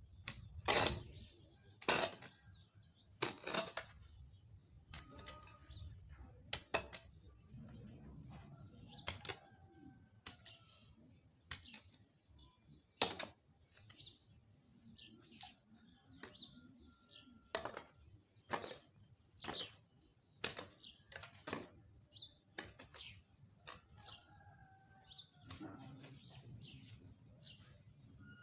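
A hand hoe chopping into soil and weeds, a sharp strike every second or so, heaviest in the first few strokes, with birds chirping faintly.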